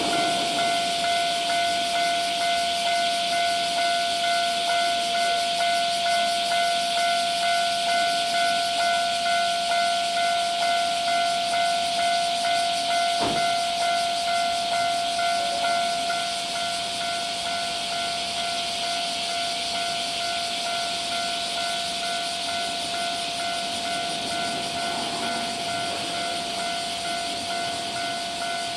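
Railway level-crossing warning bell ringing in a steady repeating ding, about one and a half strokes a second, over a constant hiss. A single sharp click about thirteen seconds in.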